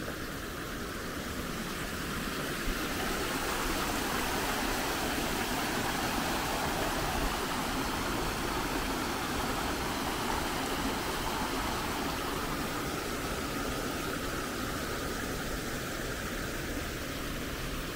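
Water splashing down a small rocky cascade in a garden stream: a steady rushing that grows louder a few seconds in and fades again near the end.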